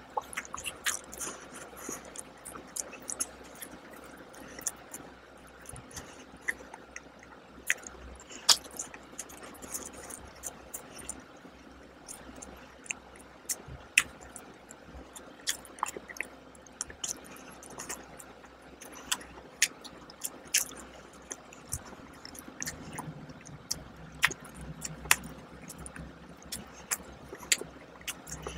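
A person chewing a soft glazed donut close to the microphone, with many short, wet mouth clicks at irregular intervals.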